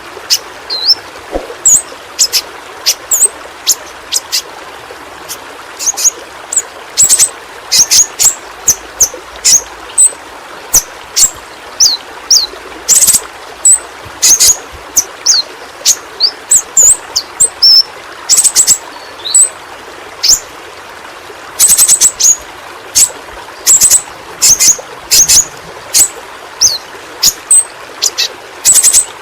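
Pentis pelangi flowerpecker calling: a rapid run of short, sharp, very high chirps and quick down-slurred notes, several a second, over a steady background hiss.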